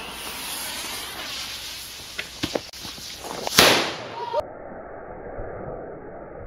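A firework fizzing, with a few sharp pops and then one loud bang about three and a half seconds in, giving off blue smoke. After that the sound turns dull and muffled.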